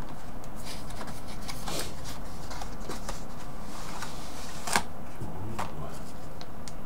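Small cardboard box and its packaging being handled: the contents sliding out with light scrapes, taps and rustles, and a sharp click about five seconds in.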